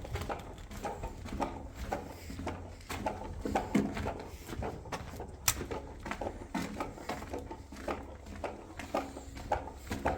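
Footsteps walking steadily through a concrete-lined tunnel, about two steps a second, over a low steady hum, with one sharper click about five and a half seconds in.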